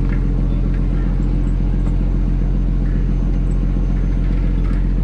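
Fishing trawler's inboard diesel engine running steadily under way: a loud, even low drone with a fast regular throb.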